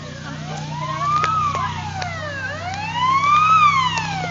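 Police car siren wailing, its pitch rising and falling in a cycle of about two seconds, over a steady low hum.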